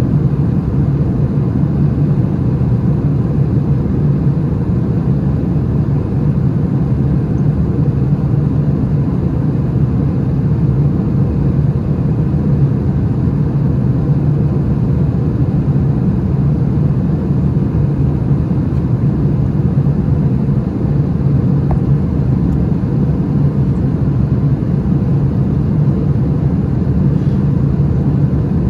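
Airbus A380 cabin noise at cruise, heard from a window seat over the wing: a steady, even drone of engines and airflow, heavy in the low end and unchanging.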